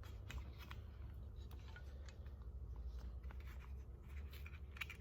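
Faint handling noises, a few light clicks and rubs scattered through, over a low steady hum.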